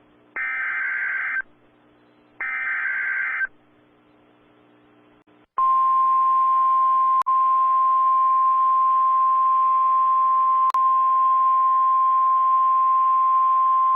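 Emergency Alert System header: two short, screechy digital data bursts about a second apart, the end of the three-burst coded header. After a brief pause comes a long, single steady alert tone that announces the severe thunderstorm warning.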